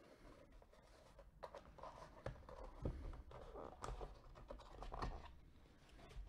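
Cardboard mailer box being torn open by hand: faint scratchy rustling as the tear strip is pulled off along the edge and the lid is lifted, with several sharp snaps of the cardboard.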